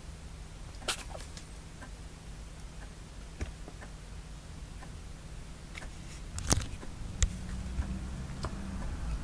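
Kittens' paws and claws on cardboard scratchers, making scattered light taps and clicks; the sharpest come about a second in and twice more around six and a half to seven seconds. A low steady hum runs underneath.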